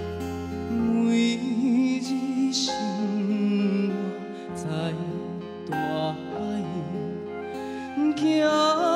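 A man singing a slow Taiwanese Hokkien ballad into a microphone, with vibrato on held notes, over instrumental backing.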